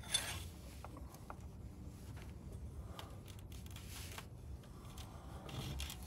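Faint rubbing and a few light clicks of metal tools being handled at the engine's drive belt tensioner, with the engine off.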